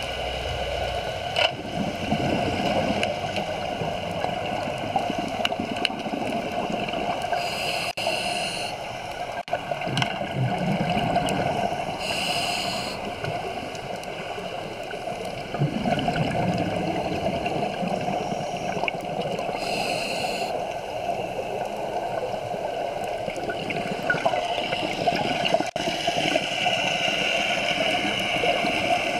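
Underwater ambience picked up by a camera below the surface: a steady watery hiss and gurgle, with short bursts of brighter hiss every several seconds.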